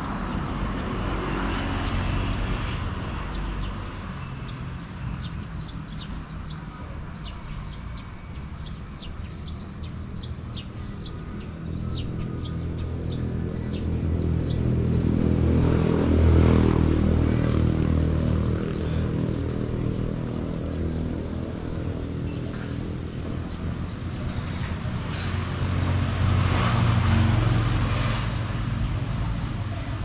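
Street traffic on a town road: cars and motorbikes pass over a steady rumble, swelling loudest about halfway through and again near the end as vehicles go by close.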